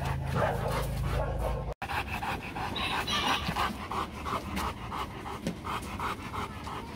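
A Rottweiler panting quickly and evenly with its tongue out, about three to four breaths a second. A low rumble runs under the first two seconds.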